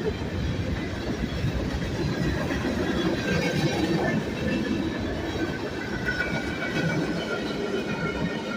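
Freight cars of a manifest train rolling past: a steady rumble and clatter of steel wheels on rail, with thin, steady high squealing from the wheels above it.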